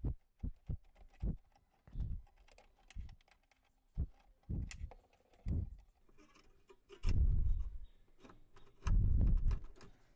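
Scattered metallic clicks and taps as the Maruti Alto's boot latch mechanism is handled by hand, with dull low thumps and rustles, the loudest about seven and nine seconds in.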